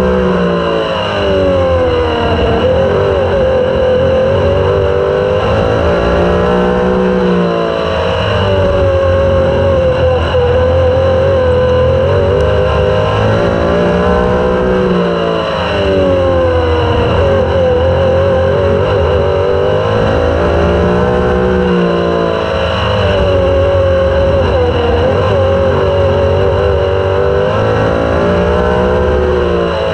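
Super sprint race car engine at racing speed, heard from a camera mounted on the car. It runs loudly throughout, its pitch sagging and climbing again about every seven seconds as it works around the oval.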